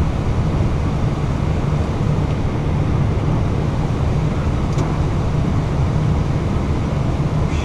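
Steady cabin noise on an Airbus A320 flight deck while taxiing: an even low rumble of the engines at idle and the air conditioning.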